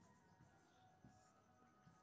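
Near silence, with a couple of faint ticks from a marker pen writing on a whiteboard.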